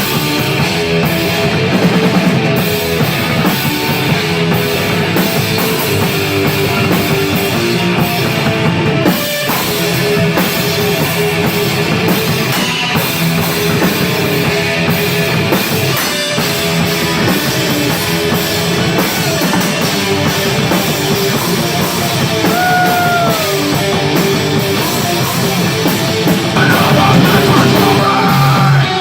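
A rock band playing live, with drum kit and guitars going steadily at full volume throughout.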